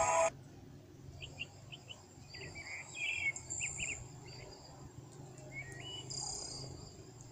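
Faint, scattered bird chirps, short high notes coming in quick groups and a few small glides, over a low steady hum.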